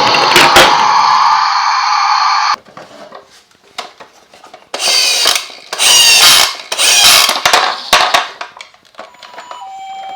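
A toy ambulance's electronic siren sound plays and cuts off suddenly about two and a half seconds in. After a pause come about four short whirring, rattling bursts, roughly one a second, as the toy runs. Near the end, steady electronic beeping tones start.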